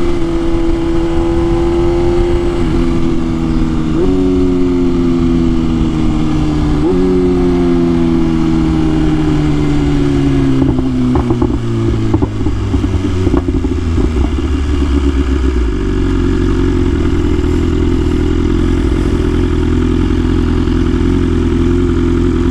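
BMW S1000RR inline-four sport bike engine slowing down, its pitch falling with two sharp rises about 4 and 7 seconds in as it is downshifted. A few sharp pops and crackles come from the exhaust on the overrun, and from about halfway through the engine settles into a steady idle.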